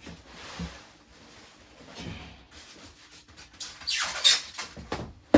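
Large cardboard microwave box rustling and scraping as it is turned over and shifted, with a loud cardboard scrape about four seconds in and a sharp knock near the end.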